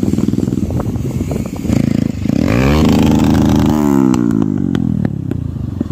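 Motorcycle engines running close by while riding. About two seconds in, one is revved hard: its pitch climbs steeply, holds for about a second, then falls back.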